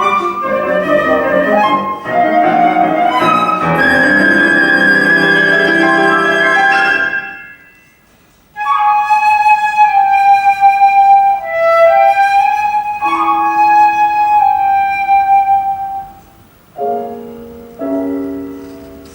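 Flute and piano performing a classical piece. The music stops briefly about eight seconds in, the flute then holds long sustained notes over the piano, and the piano plays alone near the end.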